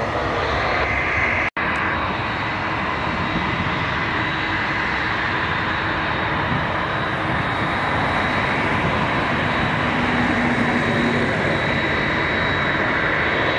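Twin-engine jet airliner on final approach, its turbofan engines running as a steady rush with a high whine held over it. The sound breaks off for an instant about one and a half seconds in, where it cuts from a jet on the runway to the one landing.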